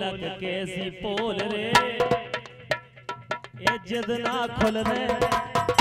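Rai folk music: a steady harmonium drone under a wavering melody, with rapid, sharp drum strikes throughout.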